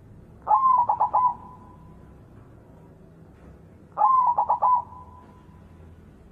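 White zebra dove (perkutut) cooing: two phrases about three and a half seconds apart, each a held note breaking into a quick run of four or five short notes.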